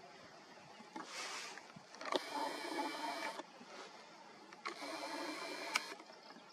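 Small camera zoom motor whirring in two short runs of about a second each, starting and stopping abruptly, with a click near the end of the second run.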